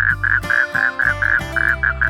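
Toad calling: a quick series of short croaking notes, about four a second, over background music with sustained chords.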